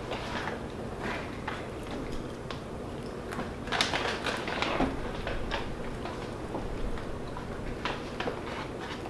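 Soft, scattered clicks and rustles of food being handled and eaten, over a steady low hum.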